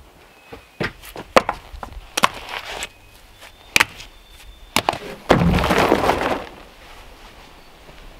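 Stones knocking against stones: a run of sharp, separate clacks, then about five seconds in a louder rough rush lasting about a second, like rubble or a rock scraping and settling.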